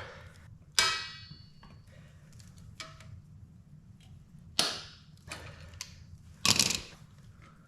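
Metal hand tools being handled: a sharp metallic clang that rings briefly about a second in, followed by a few scattered knocks and a louder clatter near the end.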